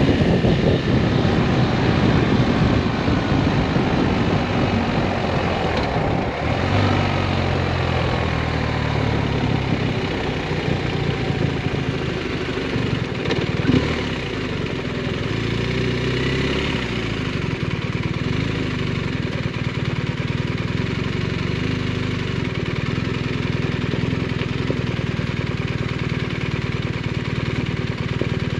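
BMW R1250RS boxer-twin motorcycle engine running on the road, with heavy wind noise on the jacket-mounted microphone. The engine note shifts with speed changes and settles a little quieter and steadier about halfway through, with one short click around then.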